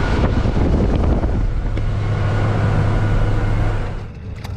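Steady motor hum under a loud rushing noise, which cuts off about four seconds in.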